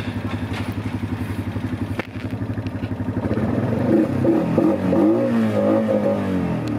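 Honda TRX500 quad bike's single-cylinder engine idling with an even pulse, then revved from about three and a half seconds in, its pitch rising and falling several times.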